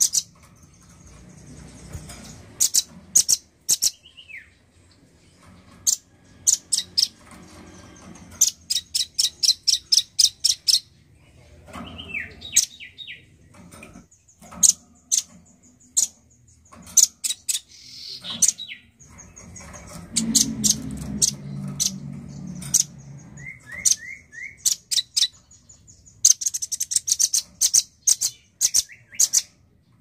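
Male velvet-fronted nuthatch calling: rapid trains of sharp, high chips at about five a second, broken by a few short falling notes and a thin high whistle.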